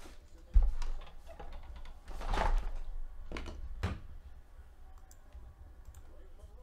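Handling noises on a tabletop: a thump about half a second in, a rustle around two seconds in, then two sharp clicks, fading to faint ticks near the end.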